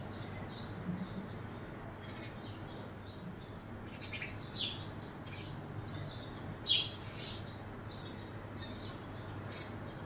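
Sparrows chirping in short, scattered calls, sparse at first and busier from about four seconds in, with one louder chirp a little past halfway.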